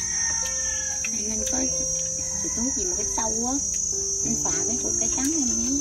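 Insect chorus chirring steadily at a high pitch, with fainter held and wavering pitched tones underneath.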